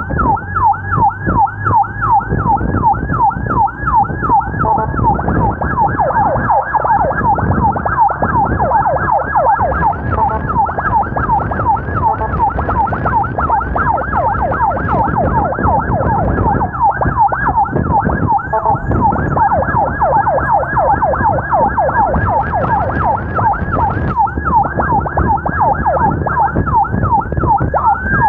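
Emergency sirens of a police motorcycle escort and ambulances in fast yelp mode, repeating quick pitch sweeps about four or five times a second, with engine and road noise underneath.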